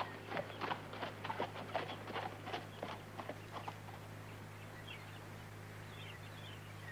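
Horses' hooves clip-clopping at a walk on a dirt trail, thinning out after about three seconds, over a steady low hum.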